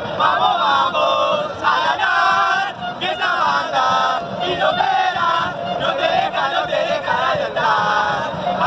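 A group of Argentine football fans singing a chant together at close range, loud, several voices holding sung notes that shift in steps.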